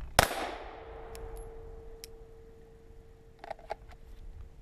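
A single shot from a 9 mm Glock 17 pistol about a quarter second in, fired fast from the draw. A steady ring lingers after it for several seconds. A couple of light clicks come about three and a half seconds in as the pistol goes back into its holster.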